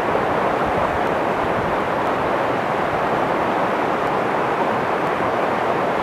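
Fast-flowing mountain river rushing through boulders: a steady, loud rush of water.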